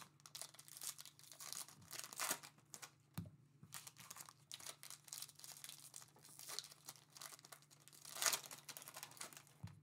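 Foil trading-card pack wrappers being torn open and crinkled by hand, a run of quiet irregular crackles with a louder rustle a little after eight seconds.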